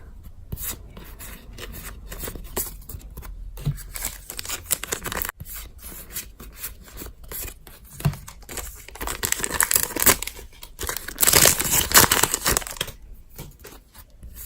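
Foil Pokémon booster pack wrappers being torn open and crinkled while cards are handled, in irregular bursts, with a louder stretch of tearing from about nine to twelve seconds in.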